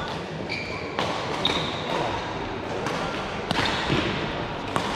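Racket-sport rally in a sports hall: several sharp racket hits at irregular intervals, with short high shoe squeaks on the court floor.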